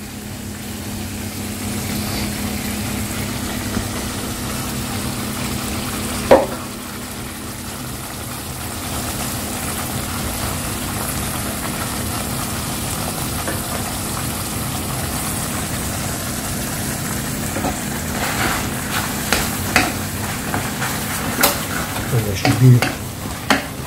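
Reddish onion and tamarind sambal sauce simmering and sizzling steadily in a pan over a gas burner, with one sharp knock about six seconds in. In the last quarter a spatula knocks and scrapes against the pan as grated coconut is stirred into the sauce.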